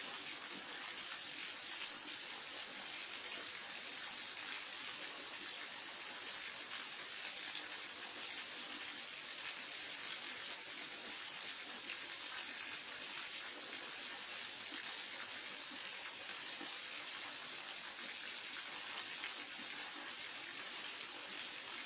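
Waterfall: a steady, even rush of falling water, hissy and unchanging in level.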